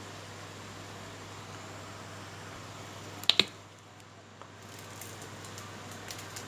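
Steady background hiss with a low hum, broken about three seconds in by two sharp clicks in quick succession, with a few faint ticks near the end.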